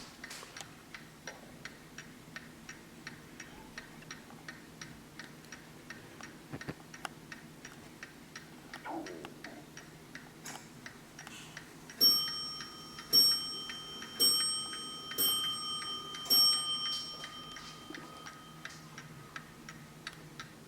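Hermle skeleton mantel clock ticking steadily, then, about twelve seconds in, striking its bell five times about a second apart, each strike ringing on: the clock striking the hour.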